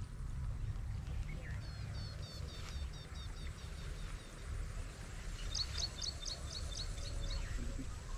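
Wind rumbling on the microphone, with a small bird giving two runs of quick, high repeated chirps, the second run louder.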